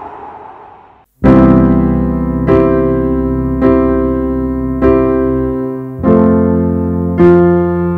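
Background piano music: slow chords struck about once every second and a bit, each left to ring and fade, with a change of chord about six seconds in. It begins after a noisy rush fades away in the first second.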